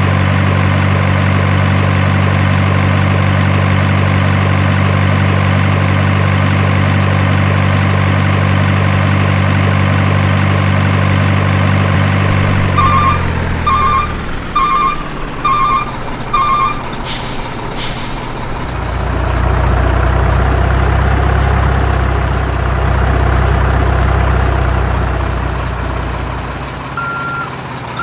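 Heavy-vehicle diesel engine running at a steady drone that fades out about halfway, then five evenly spaced reversing beeps and two short hisses. A lower engine drone follows, and reversing beeps start again near the end.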